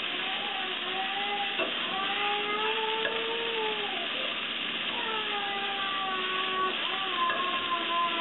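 Sliced green peppers sizzling in a hot oiled frying pan as they are stir-fried, a steady frying hiss. Several drawn-out, wavering pitched tones sound over it.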